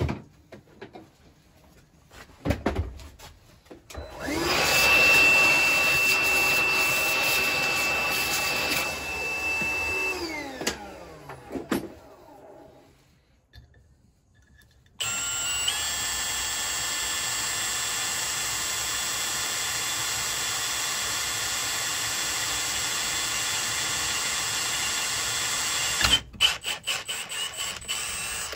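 Cordless drill drilling out a stud broken off flush in a cast-iron engine vaporiser. A run of about six seconds with a steady whine, winding down as the trigger is released, then after a short pause an even run of about eleven seconds, ending in a few clicks.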